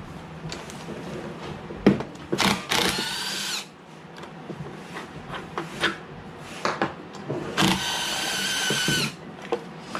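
Power drill with a driver bit running in two bursts, about a second and about a second and a half long, a motor whine that sags in pitch as the first burst ends, backing out fasteners to take the lawnmower carburetor off. Short clicks and knocks of the tool and metal parts come in between.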